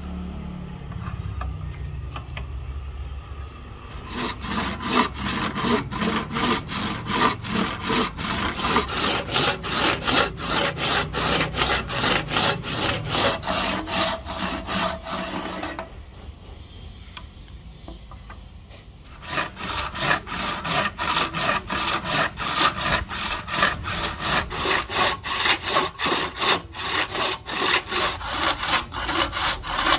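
Hand saw cutting a rosewood axe-handle blank held in a bench vise, in quick, even back-and-forth strokes. The sawing stops for about three seconds past the middle, then starts again. A low rumble fills the first few seconds before the sawing begins.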